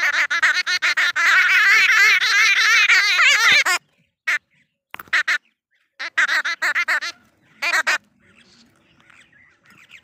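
Jungle babbler giving harsh, rapidly wavering chattering calls: one long unbroken run for the first few seconds, then shorter bursts, and fainter chatter near the end.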